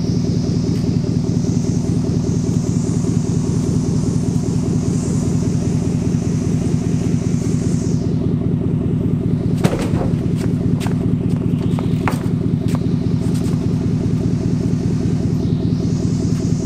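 Vehicle engine running steadily, with a few sharp knocks and clanks about ten to thirteen seconds in.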